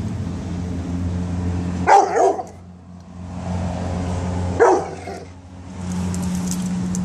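Pit bull giving two short barks, about three seconds apart, over a steady low hum.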